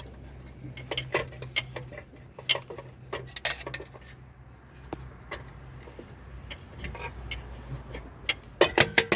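Hand tools and loose metal parts clinking and tapping against metal during clutch and flywheel removal on a car, in irregular clicks with a quick run of clinks near the end, over a steady low hum.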